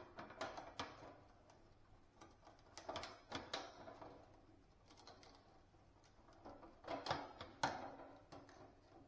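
Scattered light clicks and knocks from small metal parts and hand tools being handled while an awning pin is squeezed into a rounder shape, loudest a few seconds in and again near the end.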